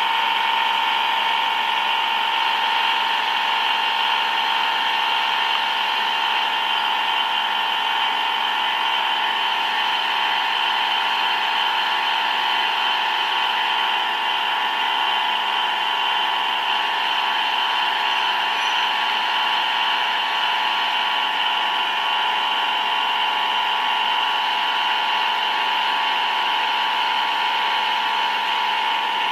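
Large CNC metal-cutting lathe running steadily, with a constant high whine.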